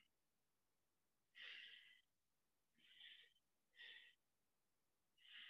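A man's faint breathing during exertion: four short, breathy exhales about a second apart.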